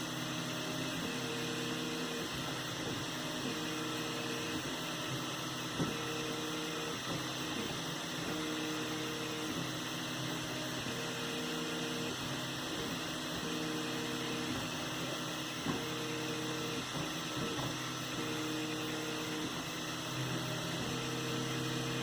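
3D printer running: its stepper motors whine in short pitched runs that switch on and off about once a second as the axes move, over a steady hum.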